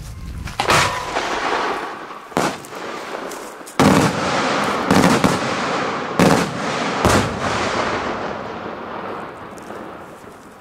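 Daytime aerial fireworks bursting overhead: a series of about six loud bangs, roughly a second or so apart, with a rolling echo between them that dies away near the end.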